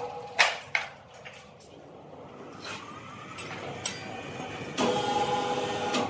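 An overhead crane's electric hoist motor runs with a steady whine, stops just after the start and starts again near the end, moving a suspended log. Two sharp knocks come within the first second, with a few lighter clicks after them.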